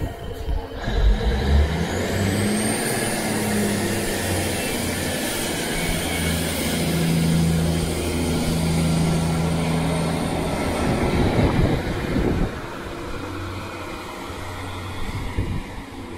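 Northern Class 150 Sprinter diesel multiple unit pulling away from the platform, its underfloor diesel engines working under power with a steady low drone. A high whine rises about two seconds in and holds, and the engine sound drops off about twelve seconds in.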